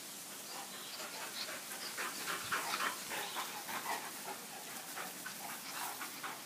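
Dogs panting in quick, repeated puffs, from the exertion of running and playing, starting about a second and a half in.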